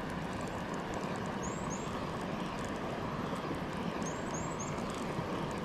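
Steady rushing background noise with a small bird giving short, high chirps, twice about a second and a half in and three times in quick succession around four seconds in.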